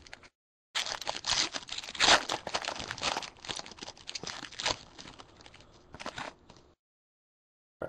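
Foil wrapper of a 2011 Bowman Draft baseball card pack being torn open and crinkled by hand, a dense run of crackling. The audio cuts out completely for a moment at the start and again for about the last second.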